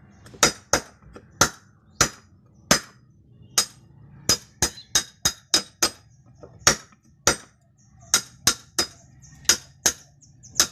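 Steel hammer striking a chisel to chop a hole in wood: about twenty sharp, ringing clinks at an uneven pace, roughly one to three a second.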